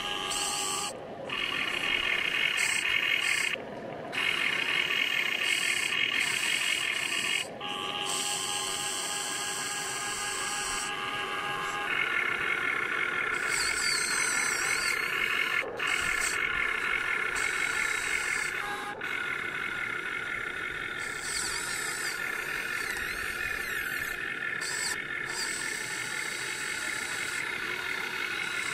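High-pitched whine of the Huina 1580 RC excavator's electric motors and gear drives as the boom, arm and bucket dig and swing. It stops briefly several times and restarts at a changed pitch as different functions are worked.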